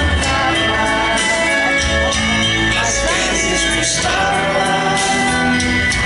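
Religious hymn sung with musical accompaniment, steady and loud.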